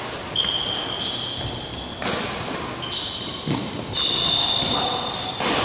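Badminton rackets striking a shuttlecock in a rally, about six sharp hits roughly a second apart with the loudest about two seconds in and near the end, echoing in a large hall. Steady high squeaks sound between several of the hits.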